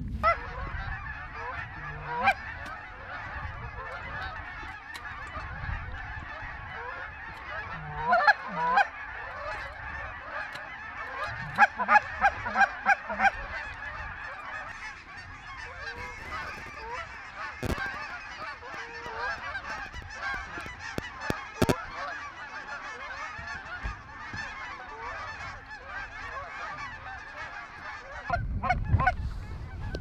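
A large flock of geese calling continuously in a dense chorus of honks, with louder, nearer honks about 8 seconds in and again around 12 to 13 seconds. Two brief sharp clicks come near the middle.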